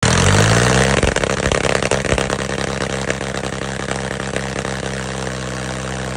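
Farmtrac 45 tractor's three-cylinder diesel engine working hard as it strains to pull a trolley heaped with sand that has got stuck. A steady low engine drone, loudest in the first second and easing a little, with a few sharp knocks between one and two seconds in; it cuts off abruptly at the end.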